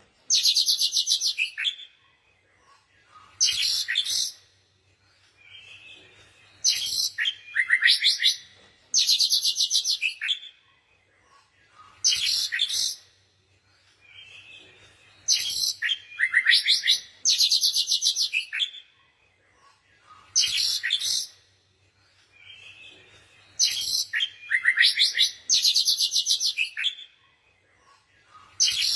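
A songbird singing short phrases of rapid, trilled high chirps, one phrase every few seconds with quiet gaps between.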